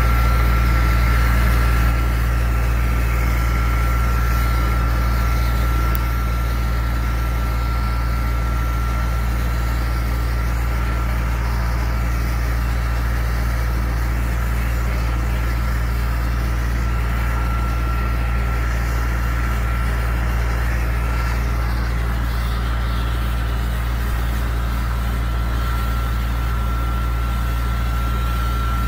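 Sandblasting rig running on a cement tanker's steel tank: a loud, steady deep drone with a constant high whine and a hiss on top. It drops slightly in level about two seconds in and again about six seconds in.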